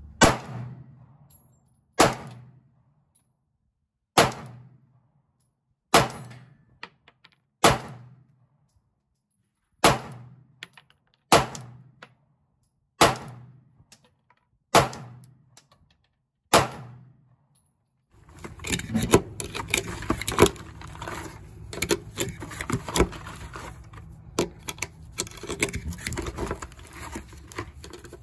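A Glock 43X 9mm pistol fired ten times, one shot every one and a half to two seconds, each crack trailing off in a short echo. From about two-thirds of the way in come close clicking and rattling as 9mm cartridges are pressed one by one into the pistol's magazine with a loader.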